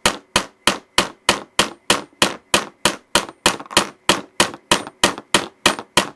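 Small hammer tapping a Williams fiber-optic front sight sideways into the dovetail slot of a Ruger 10/22 barrel: quick, even taps, about three a second. The dovetail fit is tight, so it takes many blows to drive the sight home.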